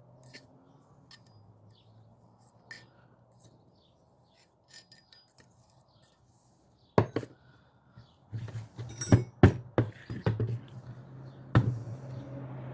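Metal tool parts clinking and knocking as they are handled: scattered light ticks at first, then a run of sharper knocks in the second half over a low steady hum.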